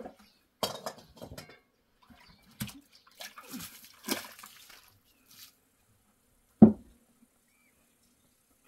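Water splashing and sloshing in short spells, with scattered knocks, then one loud, short thud about two-thirds of the way through.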